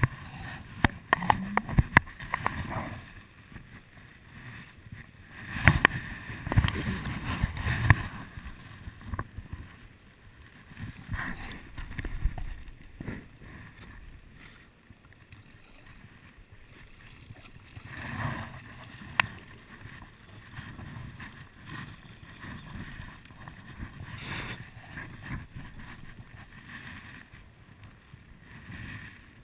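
Gusty wind buffeting the microphone over the steady rush of a high, rain-swollen river, with the loudest gusts early on and near the middle, and a few sharp clicks and knocks from handling the fishing gear.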